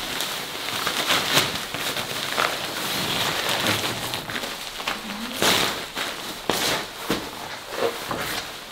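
Nylon inflatable sleeping pad rustling and crinkling while it is handled, lifted and folded up to be packed away, with several sharper scrunches along the way.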